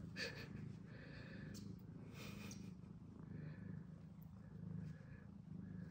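Domestic cat purring close by: a steady low rumble that swells and eases about once a second with its breathing.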